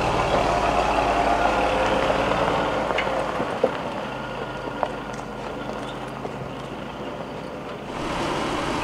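Toyota Chinook camper truck's engine idling steadily. It drops a little in level about three and a half seconds in, with a few faint clicks.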